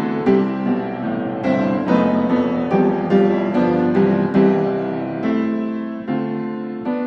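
Background piano music: notes and chords struck about once a second, each left to ring and fade.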